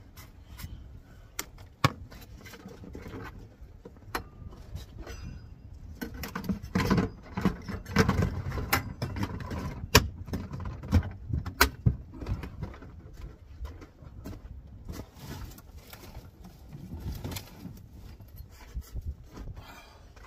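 Camp gear being handled and packed away: scattered sharp clicks, knocks and clatter over rustling, busiest in the middle stretch.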